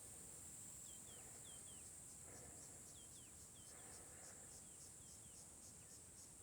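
Faint night-time insect chorus: a steady high-pitched ringing, joined about halfway through by a pulsing trill of about four pulses a second. Short high chirps that fall in pitch come in pairs every second or so.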